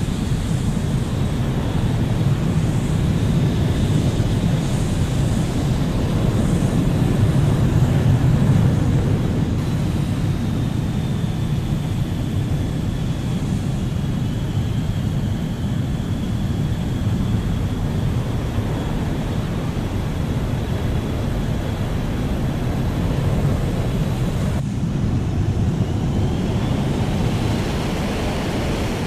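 Jet engines of an Avro Arrow Mk 1, its twin Pratt & Whitney J75 turbojets, running at high power as a steady deep roar. A thin turbine whine rides above the roar, falling in pitch midway and rising again near the end. The sound changes abruptly about a third of the way in and again near the end.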